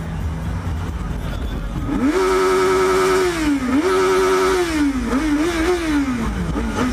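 Yamaha XJ6's inline-four engine idling low, then revved hard twice about two seconds in, each time held flat against the rev limiter for about a second before dropping, followed by a few quick throttle blips as the revs fall away.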